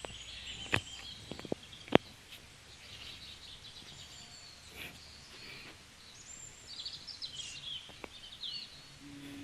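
Birds chirping and calling over outdoor background noise, with a few sharp knocks in the first two seconds, the last one the loudest.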